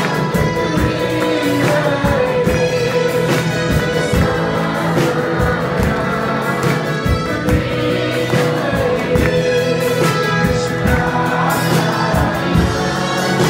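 Gospel worship song sung by a group of voices over a band, with a steady drum beat and guitar.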